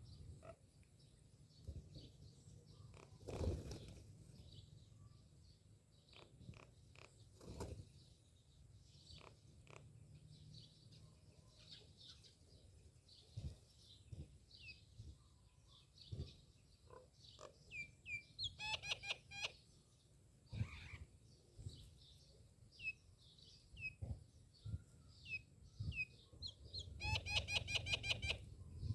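Myna birds calling with scattered short chirps and whistles, breaking twice into fast chattering runs, about two-thirds of the way in and near the end. A few knocks are heard, the loudest about three seconds in.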